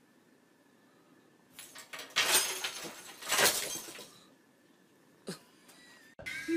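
A loud clattering crash of something falling over, with two main impacts over about two seconds, followed by one short knock a second or so later.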